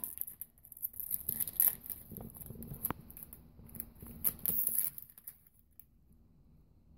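A hockey card pack's shiny plastic wrapper crinkling and tearing as it is opened by hand, with the cards rustling and tapping on the table. The handling dies down about five seconds in.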